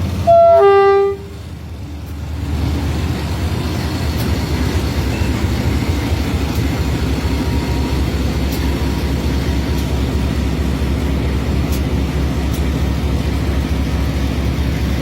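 A horn sounds a short two-note blast, a higher note then a lower one, lasting about a second. A steady low rumble of the vehicle's engine running follows.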